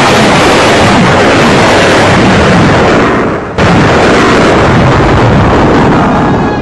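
A loud booming crash sound effect, rumbling on for a few seconds, with a second sudden crash about three and a half seconds in that then eases off near the end.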